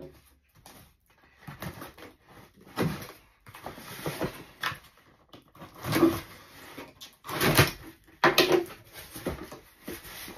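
Packing tape being torn off a cardboard shipping box and the flaps pulled open: a run of irregular ripping, scraping and rustling noises, loudest about six and seven and a half seconds in.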